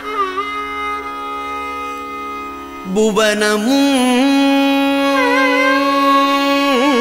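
A Tamil devotional verse sung in Carnatic style. One sung phrase fades, steady held accompaniment fills the next few seconds, and the voice comes back in about three seconds in on a long held note with turns and slides in its pitch.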